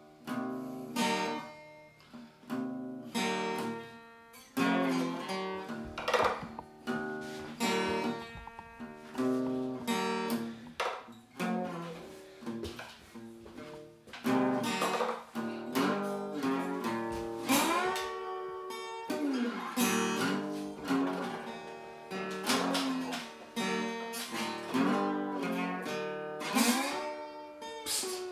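Steel-string acoustic guitar playing a blues, picked and strummed in a steady rhythm, with notes bending up and down in pitch in the second half.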